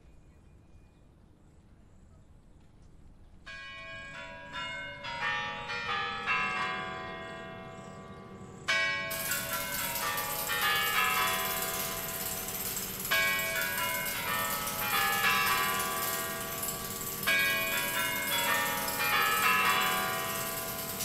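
Moscow Kremlin Spasskaya Tower clock chimes ringing their bell tune, the bells entering about three seconds in, with a louder, fuller peal from about nine seconds in.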